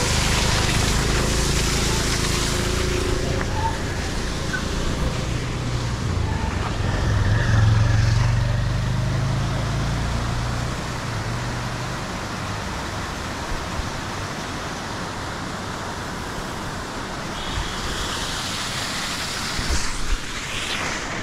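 Steady rush of rain-swollen water running down over rocks. A motor vehicle's engine rumbles past on the road, loudest about eight seconds in and gone by about twelve seconds.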